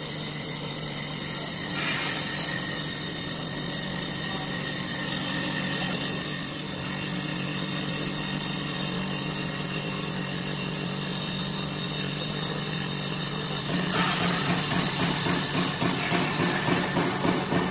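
CNC wood lathe running, its spindle turning a wooden blank while the planer and turning cutters take wood off in a steady whirring, hissing cutting noise. Near the end it grows louder and takes on a rapid pulsing.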